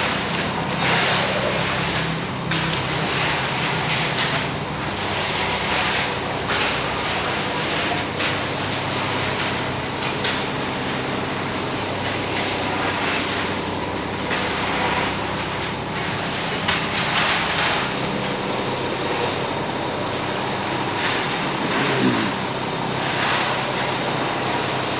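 Concrete mixer truck running steadily at a slab pour, its diesel engine turning over under an uneven rushing, rattling clatter of concrete in the drum and chute.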